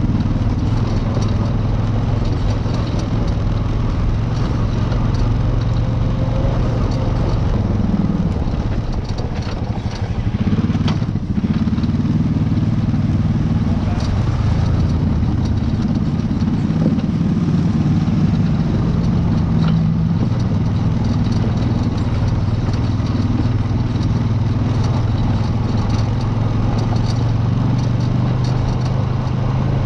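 Off-road vehicle engine running under changing throttle on a rocky trail, its pitch rising and falling a few times, with scattered knocks and clatter from the machine bouncing over rocks.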